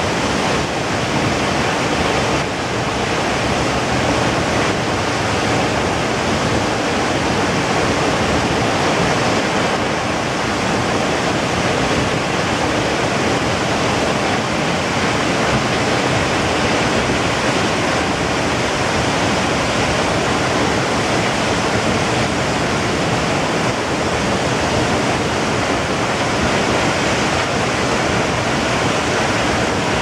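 A tall waterfall with a drop of about 125 metres, a steady, unbroken rush of falling water that stays at the same level throughout.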